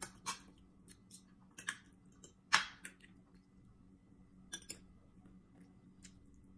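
Eating sounds: spoon and fork clicking against a plate, with close chewing and mouth noises. There are several short clicks, the loudest about two and a half seconds in.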